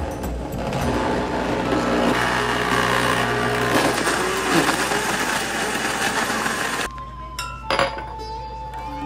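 Blender running with a steady whirring noise, mixing the iced coffee and ice cream, that cuts off suddenly about seven seconds in; a short knock follows, with background music throughout.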